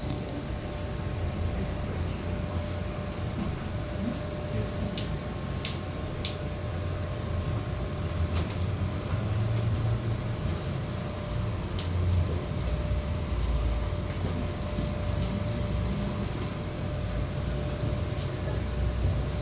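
Portland Aerial Tram cabin riding along its cables: a steady low rumble and hum inside the cabin with a faint steady whine over it, and a few light ticks.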